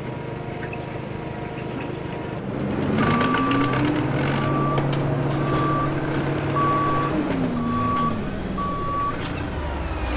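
A vehicle's reversing alarm beeping six times at a steady pace, over a running engine that rises in pitch as the beeping starts and drops back near the end, with a few light clicks.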